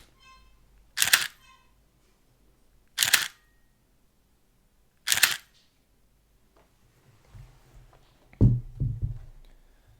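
Pentax 645Z medium-format DSLR shutter and mirror firing three times, each release a short sharp clack, about two seconds apart.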